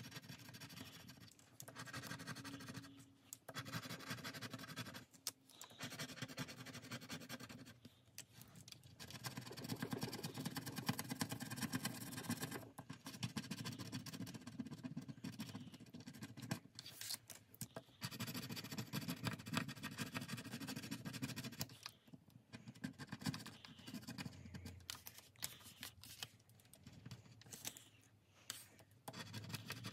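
Small tool scratching the gold coating off card-sized scratch-off cards, in runs of quick scraping strokes broken by short pauses.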